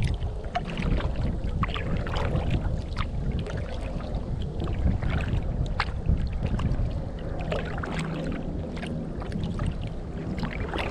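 Wind buffeting the microphone with a steady low rumble, over irregular splashes and drips of water around a kayak being paddled across choppy water.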